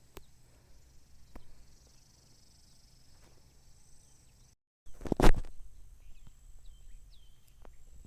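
Open-air ambience with a faint insect hum and a few short falling bird chirps, and a few light ticks. About halfway through the sound drops out completely for a moment, then a loud rushing burst of noise lasting about half a second is the loudest thing heard.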